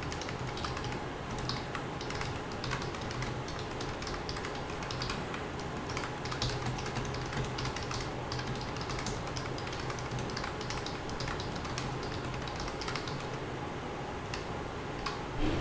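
Computer keyboard typing: irregular light key clicks throughout, over a low steady hum.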